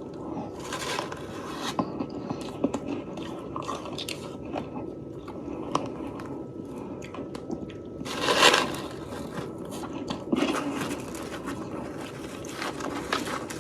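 A person biting and chewing soft, fluffy freezer frost close to the microphone, with many small crunches and crackles. The loudest, longer crunch comes about eight seconds in, and another cluster follows about two seconds later.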